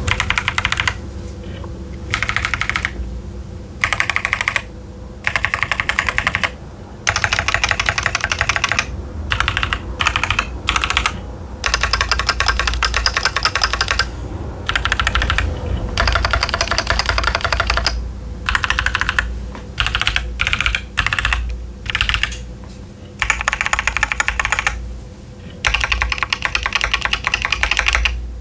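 Typing on a Keychron Q10 mechanical keyboard with TTC Chaotic Panda tactile switches and Cherry-profile dye-sub PBT keycaps: steady runs of clacky keystrokes broken every few seconds by short pauses.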